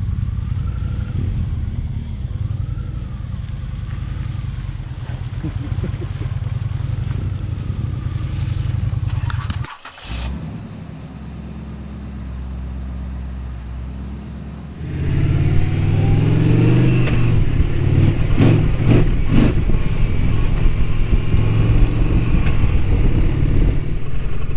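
Large motorcycle engine, an Indian Challenger's V-twin, running while the bike is ridden. The sound cuts off abruptly about ten seconds in, gives way to a steadier, quieter low drone, and returns louder from about fifteen seconds in.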